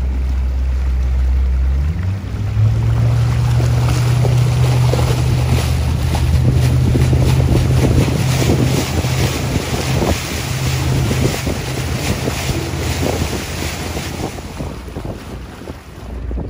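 Tour boat's motor picking up speed about two seconds in, its low hum rising in pitch, then running steadily under the rush of wind buffeting the microphone and water noise. The motor eases off and the sound drops near the end.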